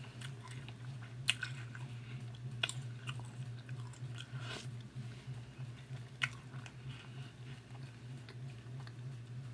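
A person chewing a mouthful of Froot Loops cereal with marshmallows in milk, with soft wet crunching and a few sharp clicks spaced out along the way, over a steady low hum.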